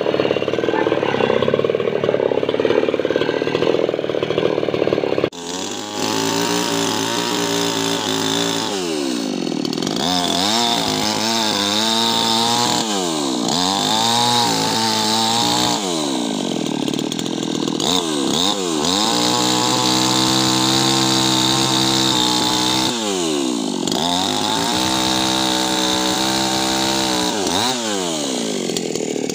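Mini chainsaw cutting mango wood. For about the first five seconds it runs steadily under load; then, after an abrupt change, its pitch rises and falls again and again, every two to three seconds, as its speed changes while it cuts.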